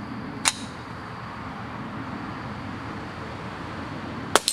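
A .22 CB round fired from a Winchester Model 290 semi-automatic rifle, heard as a single short, quiet crack about half a second in. The round is too weak to cycle the action. Near the end comes a sharp double clack.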